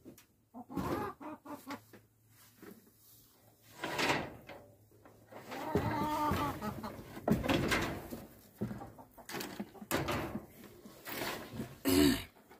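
Chickens clucking in a string of short calls, with a few knocks from handling in the coop, the sharpest near the end.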